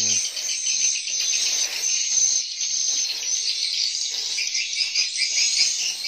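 Swiftlets twittering: a dense, continuous, high-pitched chatter of many rapid chirps.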